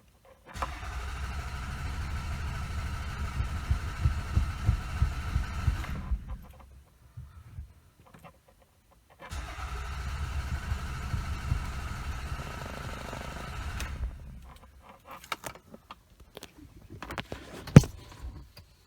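Toyota Camry engine cranked by the starter in two long attempts of about five seconds each, never catching, because the EFI fuse is pulled and the engine gets no fuel injection. A few clicks follow, with one sharp click near the end.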